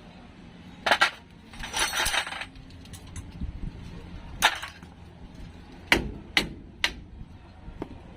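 Tools knocking on a van's brake caliper while it is worked off its lock pins: about six sharp separate knocks, with a short scraping rattle about two seconds in.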